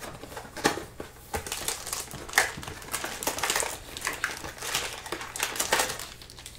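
Plastic-foil trading-card pack wrappers crinkling and crackling as card packs are handled and torn open.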